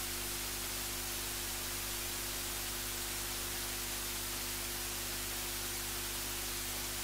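Cassette deck's background noise, heavily amplified: a steady hiss with a low hum and no clicking, the sign that the 2SC1815 fitted in place of the original 2SC458 transistor has cured the right channel's clicking.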